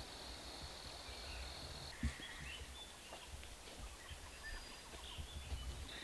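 Faint forest ambience: a steady high insect trill that stops about two seconds in, followed by scattered faint bird chirps. A soft low thump sounds about two seconds in.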